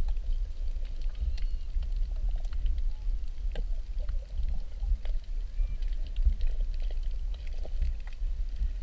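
Underwater sound picked up through an action camera's waterproof housing: a steady low rumble of moving water with scattered sharp clicks.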